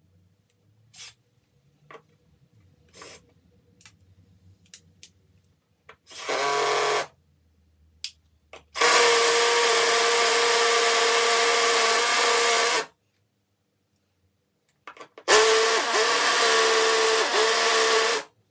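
Ryobi cordless drill boring into wall tile: a short burst about six seconds in, then two longer runs of about four and three seconds. In the last run the motor pitch dips several times under load. Faint taps and clicks come before the first burst.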